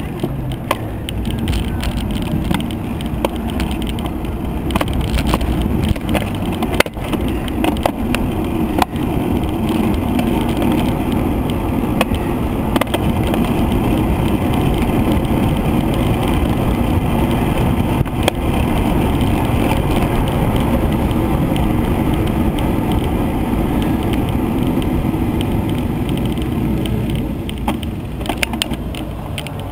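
Wind rushing over the microphone of a camera riding on a road bicycle at speed, mixed with tyre and road rumble, with small knocks and ticks scattered throughout.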